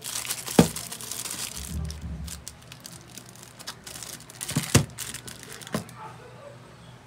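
Crinkling and rustling as a smartphone is handled with a cloth and crumpled wrapping. Sharp knocks of the phone against the workbench come about half a second in, twice in quick succession near five seconds, and once more just before six seconds.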